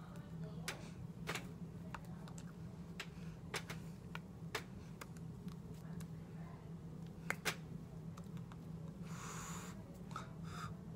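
Scattered sharp clicks and taps of a person's hands striking together while gesturing, with two louder claps about seven seconds in and a short rustle of clothing near the end, over a steady low hum.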